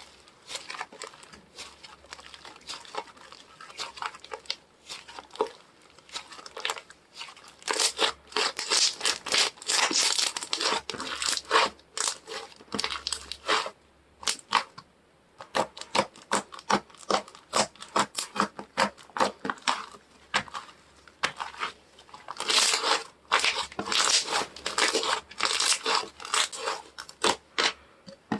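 Slime being squeezed, stretched and folded by hand, giving dense runs of crackling clicks and pops, with a brief pause about halfway through.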